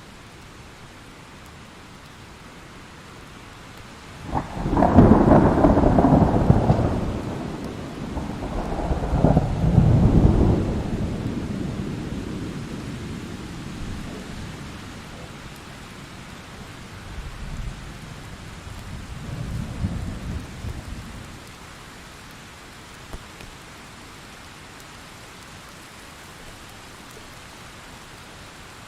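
Thunderstorm sound effect: steady rain hiss. About four seconds in, thunder breaks suddenly and rolls in two loud peaks before dying away. A second, softer rumble of thunder follows later.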